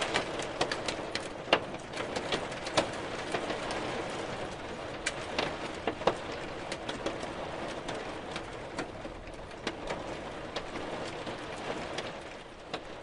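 Hailstones falling and striking a hard surface: a dense patter with many sharp, irregular clicks of individual stones, slowly getting quieter near the end.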